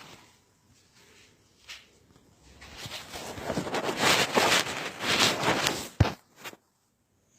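Rustling and scuffing for a few seconds, ending in a single sharp thump, after which the sound cuts out.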